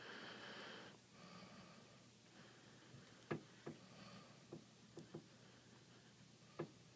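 Faint handling sounds of a small electronics repair: a brief soft rustle of the adhesive strip being handled, then about six light clicks and taps of tools or parts on the tablet.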